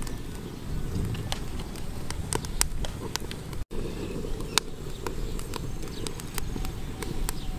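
Wood fire crackling with irregular sharp pops over a steady low rumble, with a brief break a little before halfway.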